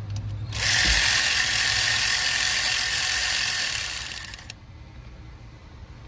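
Cordless power tool spinning a 12 mm fuel rail bolt down, a steady whirring run of about four seconds that fades and stops with a few clicks near the end as the tool's battery runs flat.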